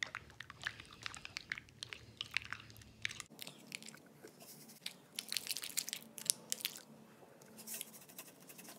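Metal spoon stirring liquid soap and salt in a glass bowl: faint, irregular crunchy clicks and sticky crackles as the salt thickens the soap into slime.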